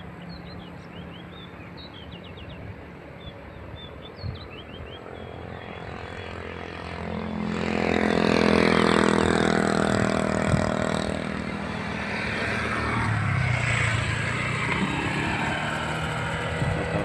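A few faint bird chirps over a low background hum, then about seven seconds in a motor vehicle's engine grows loud as it comes close, its pitch sliding slowly. It stays loud, with a second swell a few seconds later, to the end.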